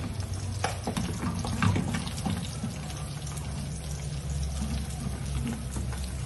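Spatula scraping and clicking against a frying pan over a gas burner, with a steady hiss of food frying.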